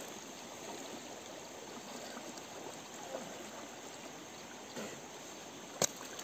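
River water flowing steadily over a shallow, stony bed. A single sharp click or knock sounds near the end.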